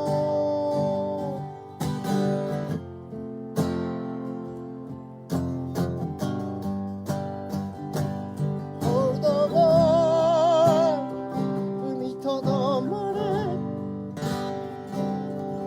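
Acoustic guitar strummed with no lyrics sung, and a wavering melody with vibrato, hummed or sung without words, from a little past halfway.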